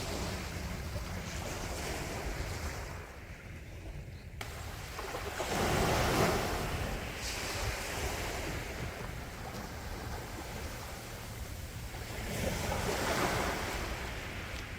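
Sea waves breaking and washing ashore. The surf swells up twice, about six and about thirteen seconds in, over a steady low rumble.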